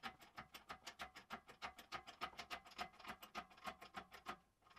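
A ratchet mechanism clicking rapidly and faintly, about eight to ten sharp clicks a second, stopping shortly before the end.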